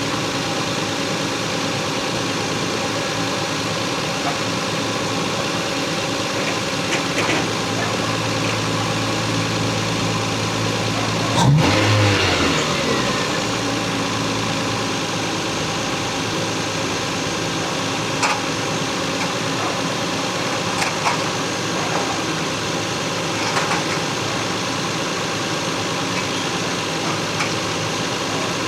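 Stock Lexus GS300's 2JZ inline-six idling steadily, with one quick rev about halfway through that falls back to idle within a second or two.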